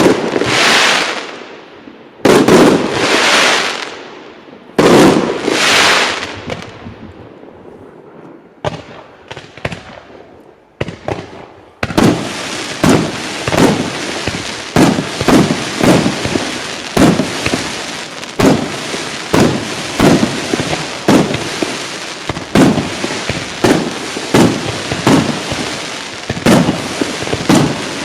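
A fireworks display: three big firework bursts with long fading tails about two and a half seconds apart, then a quieter spell of crackling, then a steady rapid run of sharp bangs, about one or two a second, over continuous crackling hiss.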